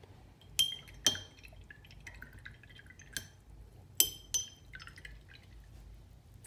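Paintbrush being rinsed in a glass water jar: five sharp, ringing clinks as it knocks against the glass, with a little water swishing between them.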